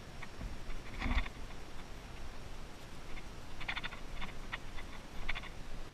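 Irregular clusters of sharp clicks, an unwanted clicking noise on the recording, over a faint background haze. The loudest moment is a low rumble with clicks about a second in.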